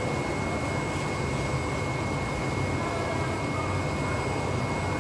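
Large-format UV roll printer running while it prints: a steady mechanical hum and whir from the print-head carriage and fans, with a thin steady high whine over it.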